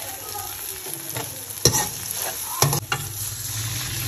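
Onion-tomato masala with green chillies sizzling as it fries in a steel karahi, a metal ladle stirring it and knocking sharply against the pan a few times.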